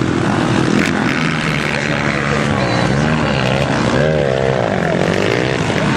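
Motocross bike engines revving on the track, the pitch repeatedly rising and falling with throttle and gear changes.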